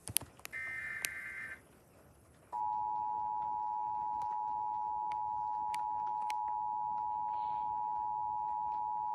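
Emergency Alert System SAME header data burst, a harsh warbling digital screech that ends about a second and a half in. After a brief pause, the EAS attention signal comes in about 2.5 s in: a loud, steady two-tone beep that holds without change, announcing a new warning.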